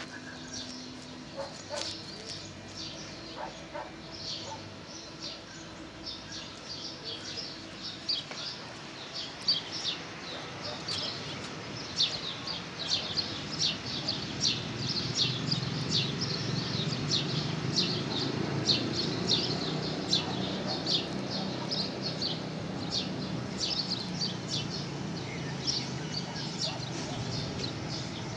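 Many birds chirping in quick, short notes, busier in the second half. A low rumble swells underneath through the middle and fades again.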